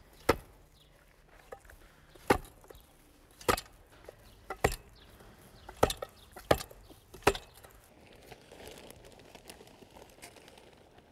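Steel hand tamper striking a fresh layer of cold patch asphalt: seven sharp thuds about a second apart, compacting the patch. Near the end, faint loose granules of cold patch pouring from a bag.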